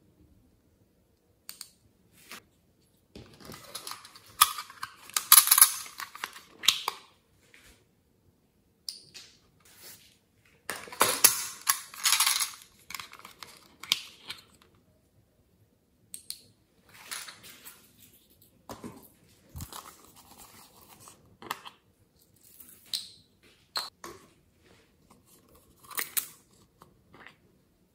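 Hands handling small plastic toy containers and their packaging: irregular bursts of plastic crinkling, tearing and clicking, loudest about five and eleven seconds in.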